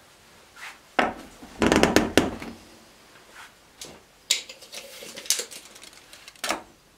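Short plastic clicks and knocks of a cut 1/2-inch PVC drain pipe and coupler being test-fitted into a slip bulkhead fitting in a plastic tote, with the loudest cluster about two seconds in, and a tape measure handled against the pipe near the end.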